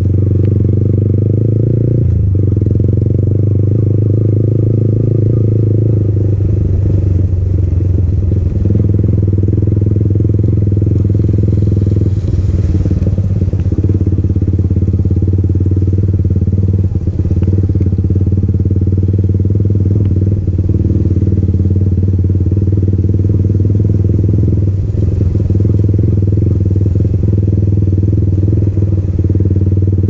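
Exhaust note of a Yamaha MT-15's single-cylinder four-stroke engine through an aftermarket Akrapovic exhaust, running at steady revs while the bike rides along. The note is low and steady, with a few brief dips.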